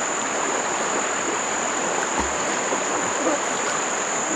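Steady rushing noise like running water, with a constant high-pitched insect drone over it.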